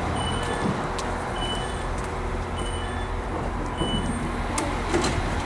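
NIR CAF 4000 class diesel multiple unit running at the platform: a steady low rumble from its underfloor diesel engines, with a few brief high-pitched tones over it.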